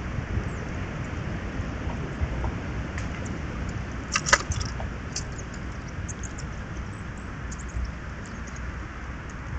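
Steady low rumble of wind on an outdoor camera microphone, with a short burst of sharp clicks about four seconds in and scattered faint high ticks after it.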